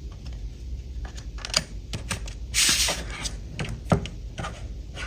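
Light clicks and taps of a metal trim strip and a PVC sheet being handled and fitted together, with a brief sliding rustle about halfway through and a sharper knock shortly after.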